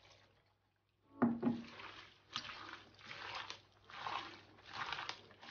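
Hands kneading chopped lamb and onions with added water in a bowl: a wet squelch repeating a little more than once a second, starting about a second in.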